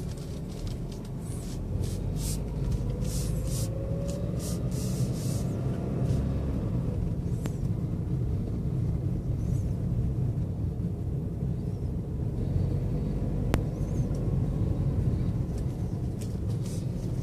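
Car driving, heard from inside the cabin: a steady low road and engine rumble, with the engine note rising as the car speeds up in the first few seconds. Two sharp clicks, one about midway and one later on.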